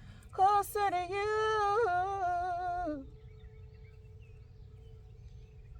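A woman's voice holding one long wordless note, wavering slightly, for about two and a half seconds, unaccompanied; it stops about three seconds in, leaving a faint steady tone over a low rumble.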